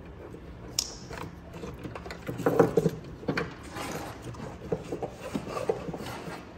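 Hands handling and fitting a plastic wiring harness and its connectors in a car's engine bay: irregular small clicks, rattles and rubbing, with a sharp click about a second in and a busier run of clicks midway.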